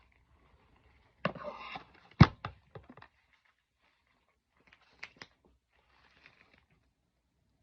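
A few knocks and clicks of small objects being handled and set down, with a brief rattle at first, the loudest knock about two seconds in, and two lighter clicks around five seconds.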